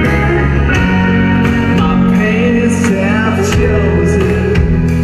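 Live rock band playing: electric guitar and drums keeping a steady beat, with a voice or slide guitar bending in pitch about two seconds in.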